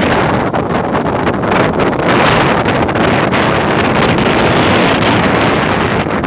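Steady loud rush of the sea, with wind buffeting the microphone.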